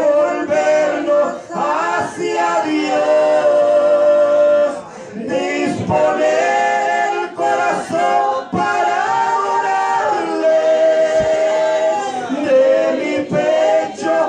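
A man and a woman singing a Spanish hymn together into handheld microphones, with long held notes. The man's voice leads.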